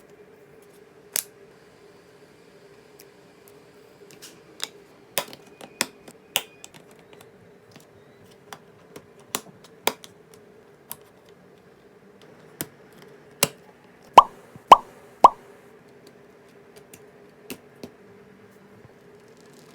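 LEGO Technic plastic pieces clicking and snapping as they are handled and fitted together: a scattered run of sharp single clicks, with three louder, slightly ringing clicks about half a second apart past the middle. A faint steady hum lies underneath.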